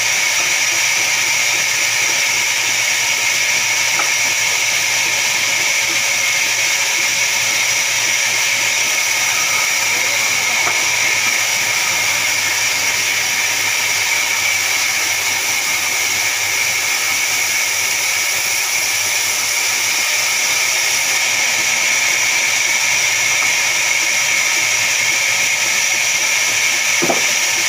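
Large vertical band saw ripping a log lengthwise as it is fed through the blade: a loud, steady high-pitched whine over a hiss that holds without a break.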